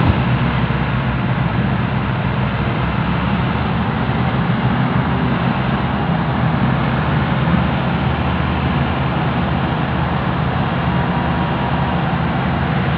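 Several farm tractors' diesel engines running hard together under heavy load as they pull an overloaded sugarcane trolley; a loud, steady engine noise with no let-up.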